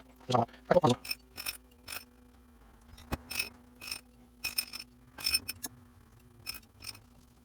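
Light metallic clicks and clinks of small steel parts: needle roller bearings being set one by one into a greased transmission cluster gear. A dozen or so separate clicks, each with a short bright ring.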